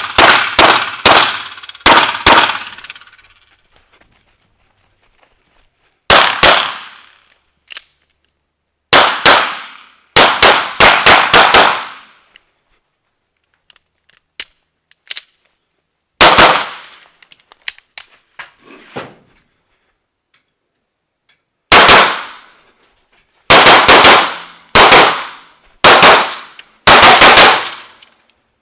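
Rapid pistol fire from an STI Matchmaster open-class competition pistol, in strings of shots mostly fired as quick pairs, with pauses of a few seconds between strings. Faint clicks and clatter sound in the pauses about halfway through.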